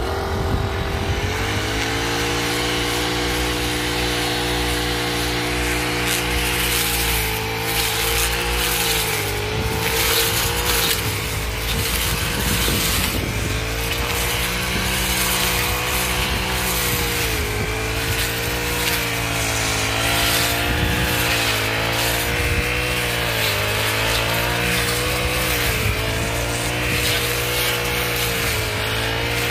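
Brush cutter engine running at moderate, fairly low revs, its pitch sagging and recovering every second or two as the freshly sharpened metal blade cuts through weeds.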